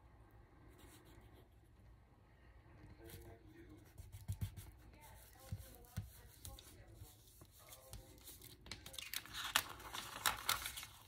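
Paper being handled: a few soft taps against the table, then a couple of seconds of louder paper rustling near the end as the glued paper collage is picked up.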